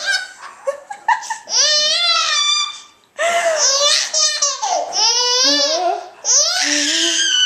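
A seven-month-old baby laughing in high-pitched bursts, several bouts in a row with short breaths between.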